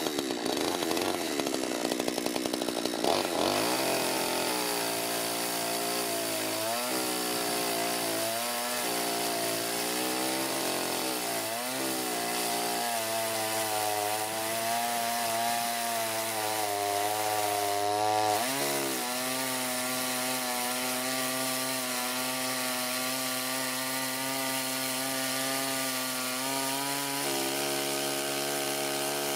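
Chainsaw mounted in a homemade chainsaw mill running at high revs and cutting along a log. Its engine note dips and recovers several times under load in the first twenty seconds or so, then holds steady.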